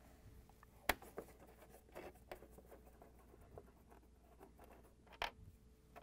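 Faint scraping and light clicking of a quarter-inch nut driver backing screws out of a plastic refrigerator dispenser tray mount, with a sharp click about a second in and another near the end.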